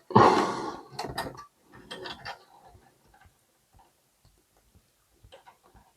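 Nylon cable tie being pulled tight through its ratchet: a loud zipping burst right at the start, a few sharp clicks over the next second or two, then faint scattered ticks of handling.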